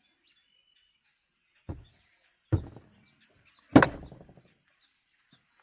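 Three heavy thunks about a second apart, the last the loudest with a brief ring after it.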